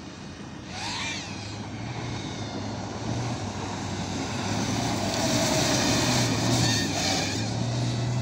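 Toyota Hilux rally pickup's engine running hard as it races along a loose desert dirt track, with a rush of tyre and gravel noise. It grows louder as the truck comes close and is loudest about two-thirds of the way through.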